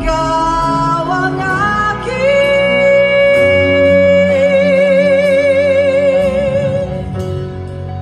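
Female pop singer with a live band, singing a line that climbs in steps and then holds one long high note for about five seconds, with vibrato coming in about halfway through, before letting it go near the end; the band carries on more softly.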